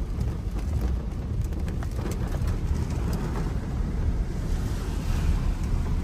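A car driving through floodwater in heavy rain, heard from inside the cabin: a steady low rumble and wash of water thrown up by the tyres, with scattered raindrop ticks on the glass.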